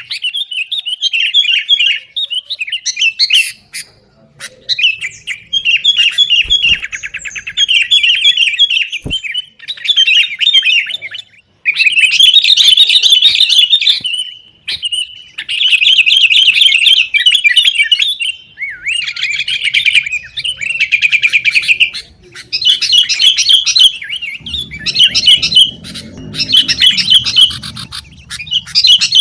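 Sooty-headed bulbuls in a noisy, fighting-style bout of song: fast runs of chattering, trilled notes, phrase after phrase with only short breaks. A faint low rumble sits underneath in the last few seconds.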